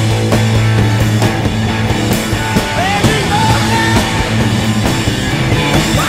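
Rock music with a steady drum beat and sliding melodic lines.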